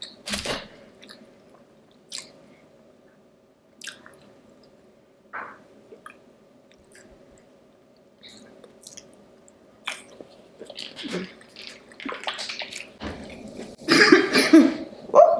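Close-miked eating: a person chewing food with wet mouth clicks and smacks, sparse at first, then denser and louder near the end. A faint steady hum sits underneath.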